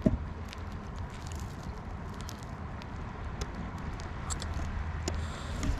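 Wind rumbling on the microphone, with scattered faint clicks and crackles.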